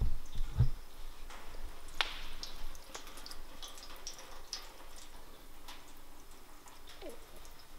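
Engine coolant draining from the bottom valve of the radiator, dripping and splashing with scattered small ticks. A couple of dull knocks in the first second and a sharp click about two seconds in.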